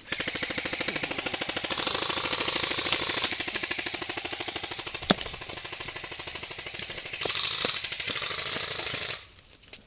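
Airsoft gun firing on full auto: a long, continuous stream of rapid shots that stops suddenly after about nine seconds, with one sharper, louder crack about halfway through.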